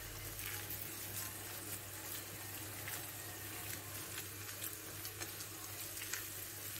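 Steady, faint sizzling and simmering of food cooking on the hob, with small crackles scattered through it.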